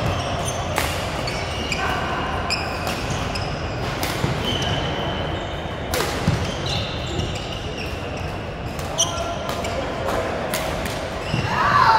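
Badminton play on a hall court: sharp, irregularly spaced racket hits on the shuttlecock and short squeaks of court shoes, over a murmur of voices in the hall.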